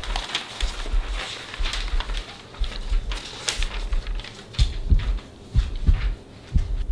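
Pencils scratching on exam papers and pages rustling and turning, with scattered small taps and a low thud repeating about once a second.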